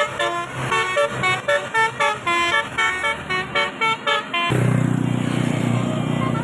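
Bus telolet basuri horn playing a fast tune of short, separate horn notes, about four a second. About four and a half seconds in, the tune stops abruptly and gives way to a steady, denser low sound.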